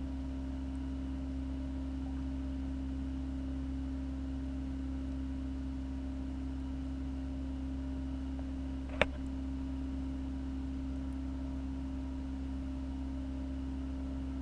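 Steady low electrical hum of reef aquarium equipment such as the circulation and return pumps, with one sharp click about nine seconds in.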